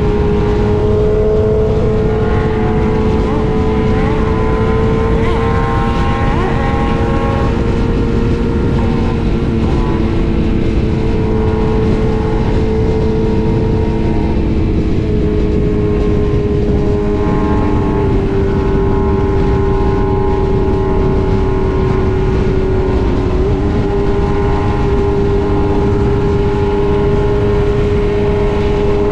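BMW S1000RR inline-four engine running at steady highway cruising speed under heavy wind rush. The engine note holds a steady pitch and dips slightly about halfway through as the bike eases off.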